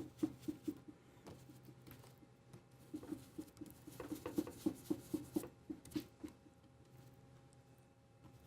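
Stencil brush dabbing paint through a stencil onto a table top: quick soft taps at about five a second, in short runs with pauses between.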